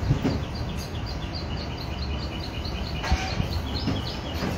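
Hand-pumped forge bellows blowing air into a coal fire, a steady low rumble, while a bird chirps a quick run of two-pitched chirps, about four a second, for most of it. Two brief knocks, one at the very start and one about three seconds in.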